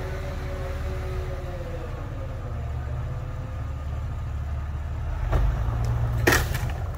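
Jeep engines running at low revs off-road, a steady rumble whose note drifts gently up and down. Two sharp knocks come near the end, the second and louder one about six seconds in.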